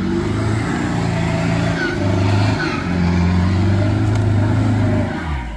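Land Rover Discovery 300Tdi 2.5-litre four-cylinder turbodiesel with a variable-geometry turbo, revving under load as it climbs out of a mud hole. The engine note rises and falls with the throttle and eases off near the end.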